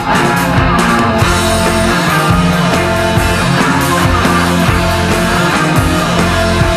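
Rock song in an instrumental passage with no singing: a loud, dense band sound that runs on steadily.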